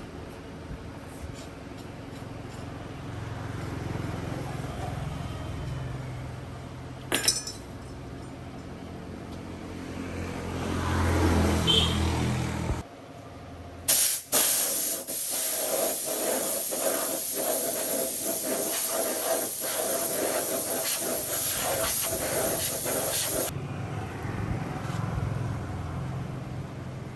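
A loud, steady hiss of gas escaping under pressure, starting about halfway through and cutting off suddenly about ten seconds later. A low steady motor hum runs beneath it before it starts and after it stops.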